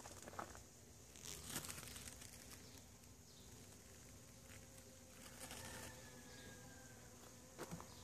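Faint outdoor garden quiet with a few soft rustles and light clicks, typical of squash leaves brushing close to the recording phone.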